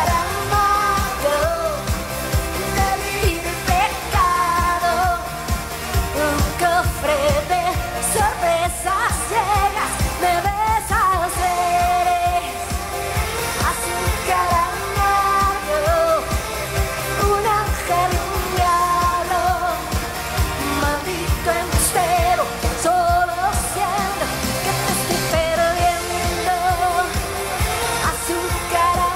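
Live pop song played by a band with guitars and keyboards, a singer's voice over a steady driving beat.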